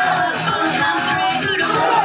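Loud idol pop song from a live stage performance: a singing voice over the music.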